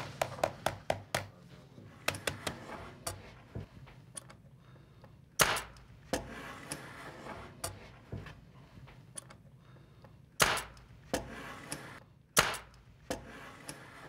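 Mallet striking aluminum flashing folded over wood. It starts with a quick run of light taps, and later come a few single, harder knocks spaced seconds apart.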